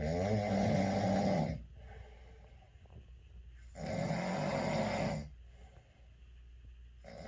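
Heavy snoring: two loud snores, each about a second and a half long, with quieter breathing between them and a third snore starting near the end.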